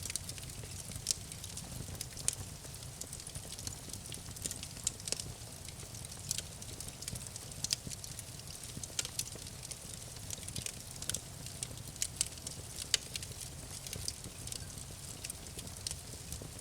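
Campfire burning, wood crackling and popping in frequent irregular sharp snaps over a steady low rumble of the flames.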